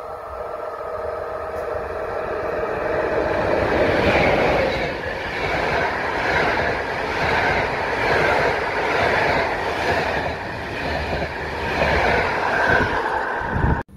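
PKP Intercity passenger train passing close by at speed: a steady whine as it approaches, then the coaches rolling past with a rhythmic clatter of wheels on the rails. The sound cuts off abruptly near the end.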